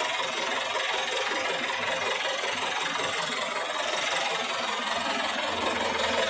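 Drilling rig's engine running steadily, with a low hum joining about five and a half seconds in.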